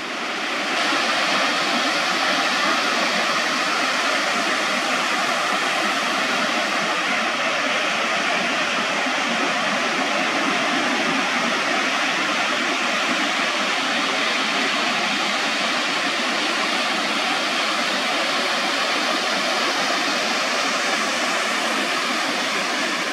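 Steady, even rush of ocean surf breaking along a beach.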